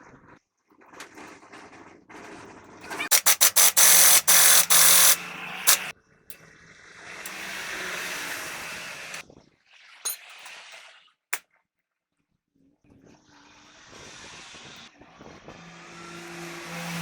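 Workshop tool noise in short separate bursts: a string of rapid loud pulses that runs into a steady loud noise, then a hiss that swells and fades, a few sharp clicks, and another hiss that rises near the end.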